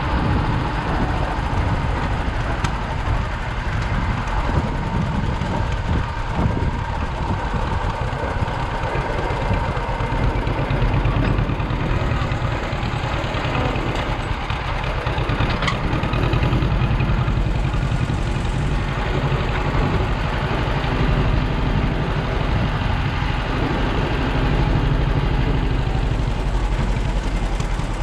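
An engine running steadily at low speed, a continuous low rumble with no rise or fall in pitch.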